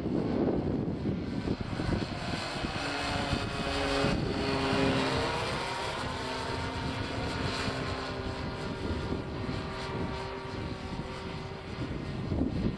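Hangar 9 P-51 Mustang radio-controlled model plane flying past overhead, its motor and propeller droning steadily, with the pitch dropping about four seconds in as it passes. Wind buffets the microphone, most at the start and near the end.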